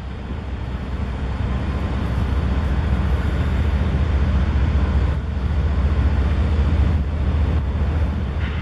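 Diesel freight locomotives rolling past: a steady, heavy low rumble of their engines that swells slightly about three seconds in.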